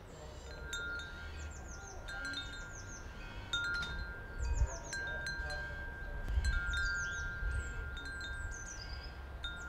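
Wind chimes ringing: long, overlapping sustained tones struck again every second or two, with quick high falling notes in little clusters, over a low wind rumble.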